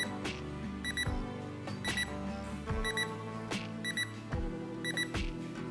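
IKEA Kupong digital alarm clock's alarm sounding: short groups of rapid, high electronic beeps repeating about once a second, over background music.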